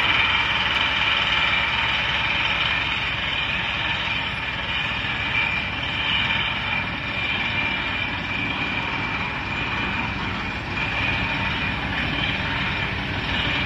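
Truck-mounted pneumatic water-well drilling rig drilling with compressed air: a steady engine-and-air noise with a fast rattling pulse underneath and a hiss of air blowing the cuttings out of the hole.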